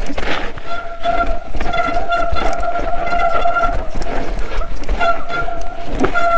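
Mountain bike disc brakes squealing in a steady high tone while braking on a very steep descent. The squeal comes in several long stretches broken by short gaps, over the low rumble of tyres on the trail.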